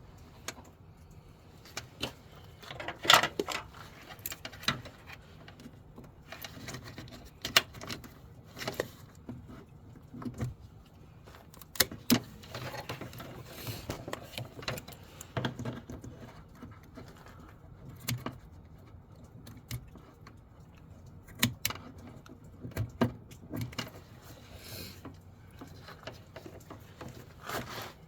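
Irregular clicks, clinks and knocks of tools and small parts being handled, as hoses and fittings are worked on in a car's engine bay. The loudest knocks come about three seconds in and again near eight seconds.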